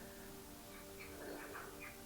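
Faint background music: soft held notes fading away, with a few short, quiet higher notes in the middle.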